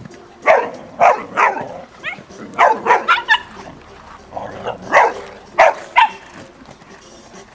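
A dog barking repeatedly: about nine short barks in three clusters.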